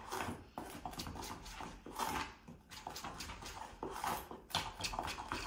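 A spoon stirring icing sugar and water in a stainless steel bowl, scraping and clinking against the metal in quick, irregular strokes as the glaze is mixed.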